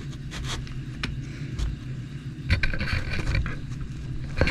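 Handling noises of wheels being taken off a Traxxas Stampede RC truck: scattered light clicks and short scrapes of tools and plastic parts.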